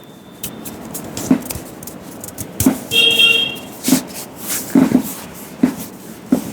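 Hands slapping and tapping on a head during a vigorous head massage: about six irregular thuds, roughly one a second. A short high-pitched beep sounds about three seconds in.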